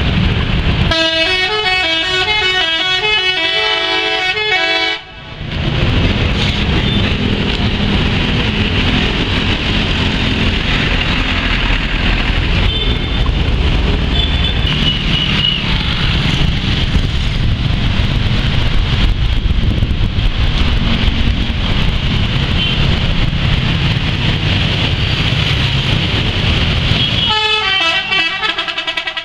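Bus 'telolet' horn, a set of air horns playing a quick, stepping multi-note tune for about four seconds, and again briefly near the end. Between the two tunes, a long stretch of loud, steady rumbling vehicle noise.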